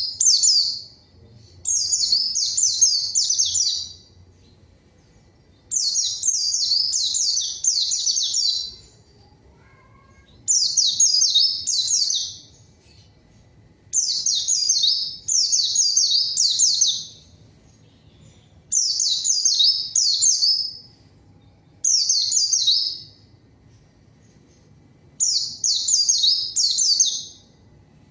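White-eye (pleci) singing a fast, high, chattering song in repeated bouts of two to three seconds with short pauses between, about eight bouts in all. This is the full, vigorous 'gacor' song used to call out a rival white-eye.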